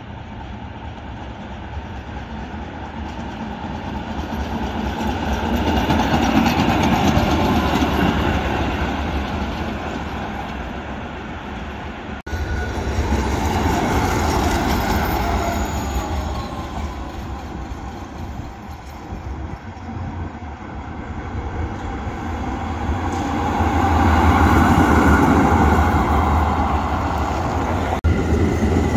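Old electric trams running past on street track, the rumble of wheels on the rails swelling as each one nears and fading as it goes, three times over, with some clatter from the wheels.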